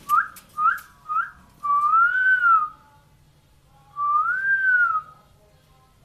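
Clear whistling: three quick rising notes, then two long notes that each rise and fall in pitch.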